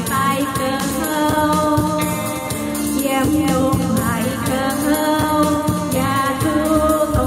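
A woman singing a song with electronic keyboard backing and light percussion with a steady beat.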